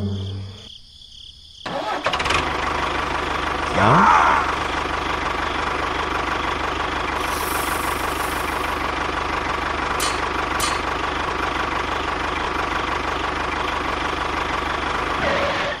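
Small engine starting up about two seconds in, with a quick rising rev, then running steadily with an even low throb. A couple of faint clicks come about ten seconds in.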